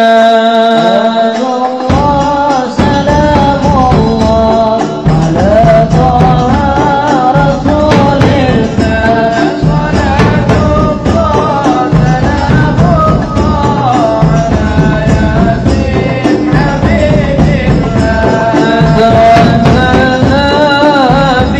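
Sholawat, Islamic devotional song, sung to a melody, joined about two seconds in by hadrah frame drums beating a steady rhythm.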